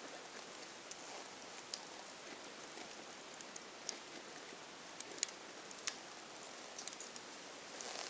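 Wood fire crackling: a low hiss with irregular sharp pops, a few close together about five seconds in.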